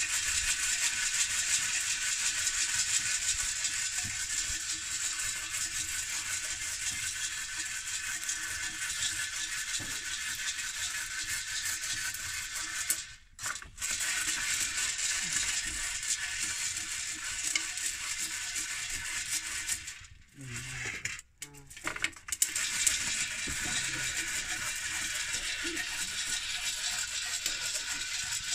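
Maize kernels rattling and crackling as they are stirred in a pot over a wood fire while being roasted for popcorn, a steady dense hiss that drops out briefly twice.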